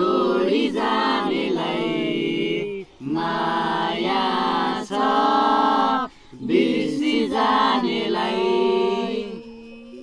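A small group of young voices singing a song together unaccompanied, in held phrases a second or two long with short breaths between. The singing fades near the end.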